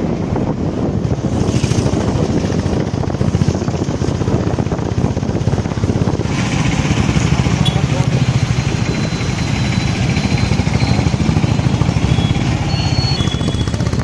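Motorcycle engine running steadily while riding, with wind buffeting the microphone; the wind hiss grows stronger about six seconds in.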